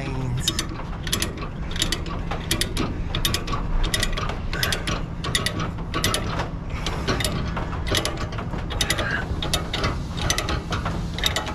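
A ratchet tie-down being cranked to tighten a load: a run of rapid pawl clicks with each stroke of the handle, repeated stroke after stroke, over a steady low rumble.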